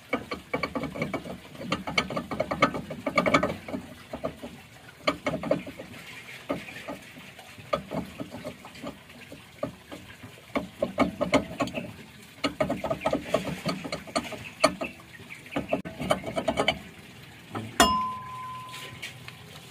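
Metal clicking and rattling in short runs as 8 mm jack bolts are worked in to push a Honda Fit's rear brake drum off its hub. Near the end the drum comes free with one sharp metallic clang that rings for about a second.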